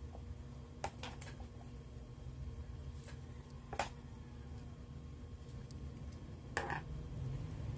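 Mealtime handling sounds of eating with the hand: a few sharp clicks and taps of fingers, food and a plastic bowl and plate, over a steady low hum.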